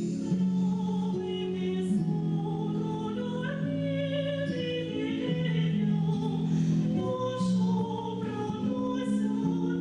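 Live music: a woman singing a slow song over sustained instrumental accompaniment.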